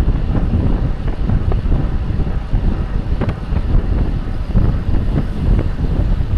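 Wind buffeting the microphone of a bike-mounted camera while the bike rides at about 33 mph, a loud, unsteady rumble mixed with tyre noise on the road. A light click sounds about three seconds in.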